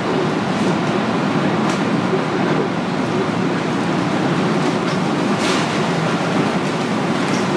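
Tornado wind passing overhead: a loud, continuous low rushing noise, steady throughout, with a few faint ticks of flying debris mixed in.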